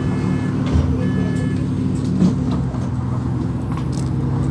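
Bus engine running steadily, heard from inside the passenger cabin. For the first second and a half, an electronic beep sounds on and off about once a second, the bus's door warning.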